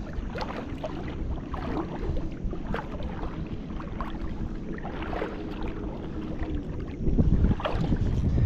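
Shallow water lapping and splashing in small ripples, with wind buffeting the microphone, which grows louder about seven seconds in.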